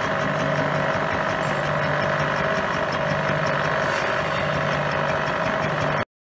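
Vertical milling machine running with its end mill cutting into a metal motorcycle wheel hub: a steady machining whine with faint regular ticking, cutting off abruptly near the end.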